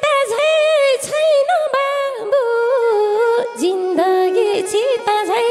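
A woman singing a Nepali lok dohori line with long held notes and small bending ornaments, with almost no accompaniment. Her pitch steps down to a lower held note past the middle.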